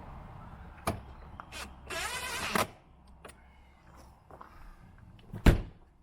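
Cordless drill-driver running screws in with a short whirr, with clicks and taps in between. Then one sharp bang, the loudest sound, as the RV compartment door is slammed shut on its new slam latch.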